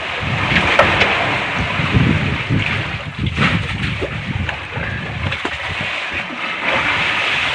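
Wind on the microphone and sea water washing around a small fishing boat, a steady rushing noise with a few scattered short knocks and scrapes.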